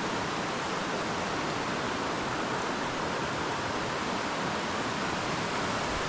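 Rushing water of a rainforest stream, a steady even hiss with no break.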